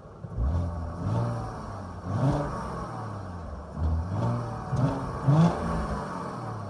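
Audi A4 B6 2.4 litre 30-valve V6 on its stock exhaust, revved in a series of about six quick throttle blips, each rising and falling back to idle, the last ones the loudest.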